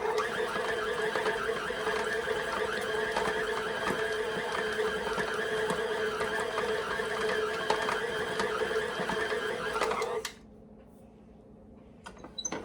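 Food processor motor running steadily as it mixes thick cookie dough, then cutting off sharply about ten seconds in. A few light clicks follow near the end.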